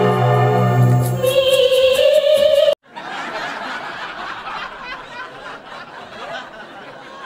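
Operatic singing over piano, rising to a held high note that cuts off abruptly a little under three seconds in. Then the murmur of a roomful of people chattering and laughing.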